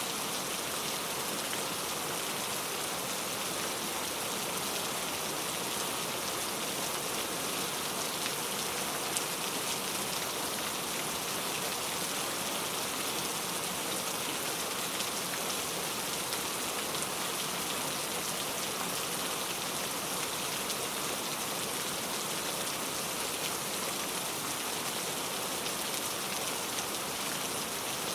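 Heavy rain falling steadily, a dense even hiss of drops striking a surface with fine individual patters throughout.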